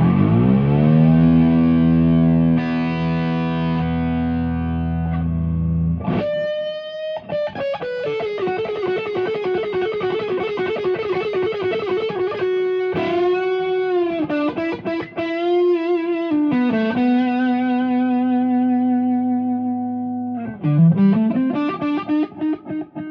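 Warmoth superstrat electric guitar played through distortion: a sustained low chord for about six seconds, then a single-note melodic line with bends and vibrato. Near the end the pitch dives down and climbs back up.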